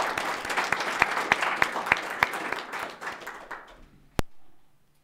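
Audience applauding at the close of a talk: many claps together that die away about three and a half seconds in, followed near the end by a single sharp click.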